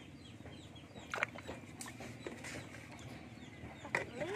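Farmyard chickens clucking and peeping in the background, with a few short, sharp sounds of water moving in a plastic tub as a baby macaque shifts about in it. A low rising call near the end.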